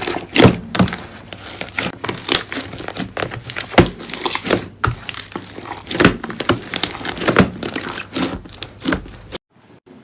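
Slime being squeezed and poked by hand, giving a dense, irregular run of sharp clicks and pops that cuts off suddenly near the end.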